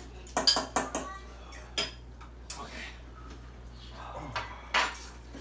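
Eating utensils clinking against bowls: a handful of separate sharp clinks, the clearest about half a second in, near two seconds and near five seconds.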